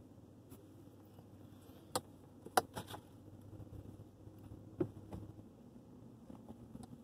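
A few faint clicks and knocks, the loudest about two and a half seconds in, over a low steady hum.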